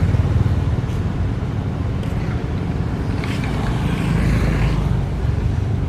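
Steady low rumble, with a few faint higher sounds around the middle.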